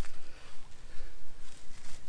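Small kindling fire of feather-stick shavings crackling in a folding metal bushbox stove, with a sharp snap at the start. Near the end, wood shavings rustle as another feather stick is pushed into the stove.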